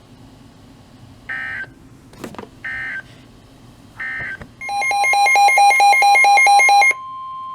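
Emergency Alert System SAME data tones: three short warbling digital bursts marking the end of a weather alert message. Loud electronic alarm beeps follow, pulsing about four times a second, over a steady tone of about 1 kHz, the weather-radio warning tone. The tone carries on alone briefly after the beeps stop.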